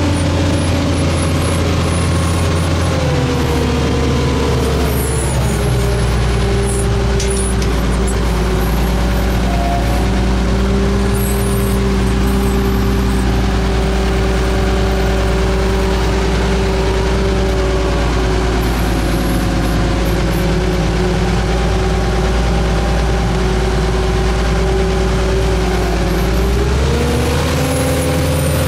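Wheel loader's diesel engine running, heard from inside the cab; the revs drop about four seconds in, hold steady, then rise again near the end.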